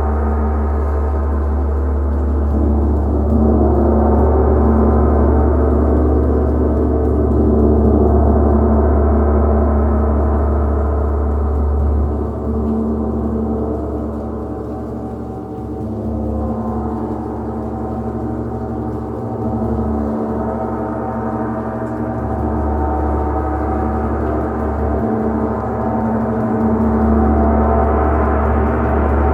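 Gong played continuously, giving a sustained wash of many overlapping ringing tones over a deep hum. It swells, eases off around the middle, and builds again near the end.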